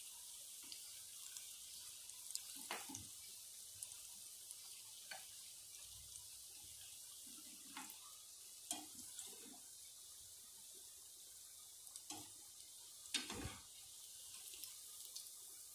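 Battered chicken pakodi deep-frying in hot oil in a frying pan: a quiet, steady sizzle with scattered pops. A slotted metal spoon stirring the pieces knocks and scrapes against the pan several times, the loudest about 13 seconds in.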